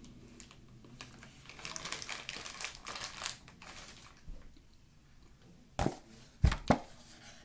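Crunchy, crinkling noise of cornstarch powder being chewed for about two seconds. Near the end come three sharp knocks, the loudest sounds, as the cardboard cornstarch box is grabbed and moved close to the microphone.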